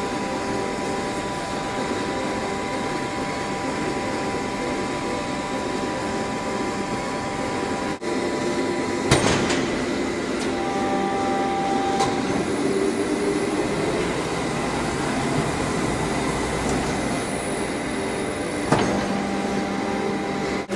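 Industrial textile printing machinery running in the factory: a steady mechanical hum with several high whining tones that shift partway through. There is a sharp knock about nine seconds in and another a couple of seconds before the end.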